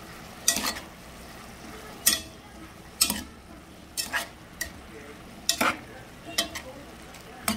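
Spoon stirring and scraping through shredded chicken and vegetables in a metal pot, with strokes about once a second. Under the strokes runs a soft, steady sizzle as the chicken sautés.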